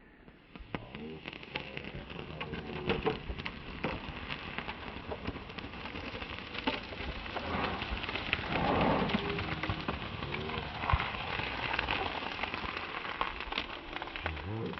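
Thermite-heated ceramic toilet lid crackling and popping as it keeps cracking from the heat, a dense run of many sharp pops and ticks.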